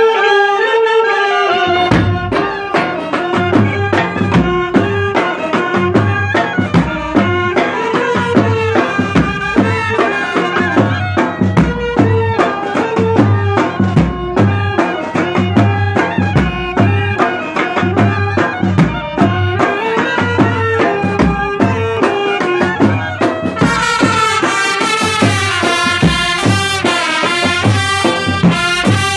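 Brass band playing a Koli folk tune (koligeet): a brass melody over a steady drum beat that comes in about two seconds in. The sound grows brighter and fuller in the last few seconds.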